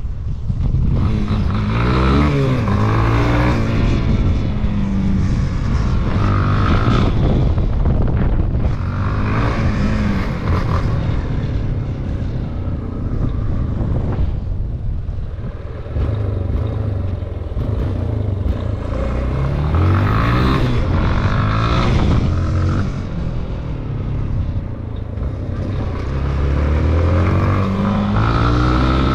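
Yamaha XTZ250's single-cylinder four-stroke engine running under way, revving up and falling back several times as the bike accelerates and eases off.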